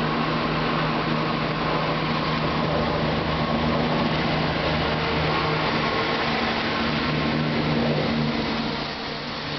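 Two coupled Class 170 Turbostar diesel multiple units pulling away under power past the platform, their underfloor diesel engines giving a steady, loud drone, with an approaching HST adding to it. The sound eases slightly near the end.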